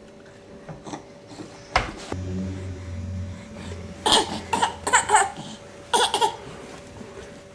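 A baby laughing in short bursts, one bout about four seconds in and another about six seconds in. A single sharp knock comes near two seconds in.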